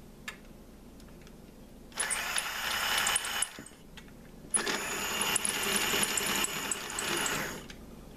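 The small electric motor of a restored 1973 Mattel Electric Hog toy motorcycle, switched on and whirring with a rattle as its drive gear spins the rear tire. It runs for about a second, stops, then runs again for about three seconds.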